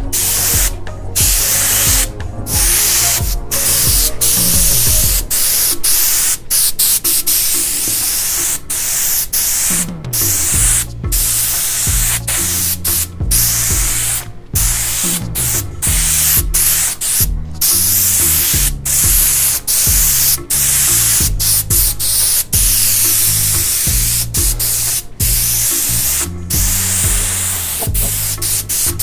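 Airbrush spraying white paint in many short bursts, the hiss stopping and starting again and again as the trigger is worked to dot stars of different sizes onto fabric. Background music with a low bass line plays underneath.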